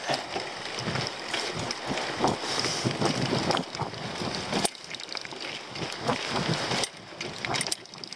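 Mountain bike descending a rocky dirt trail: tyres rolling and crunching over stones and roots, with irregular knocks and rattles from the bike as it hits the rocks, and wind buffeting the camera microphone.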